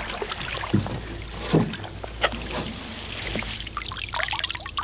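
Water sloshing and swirling around a person's chest waders as he wades through shallow pond water, with three sharper splashes in the first half.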